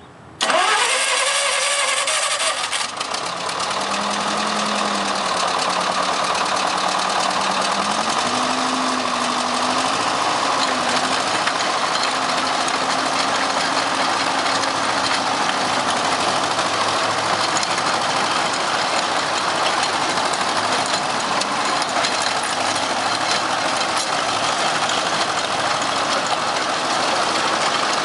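Engine of a Case tracked trencher-backhoe starting: it cranks and catches within the first few seconds, its pitch rising, then settles into running steadily at idle.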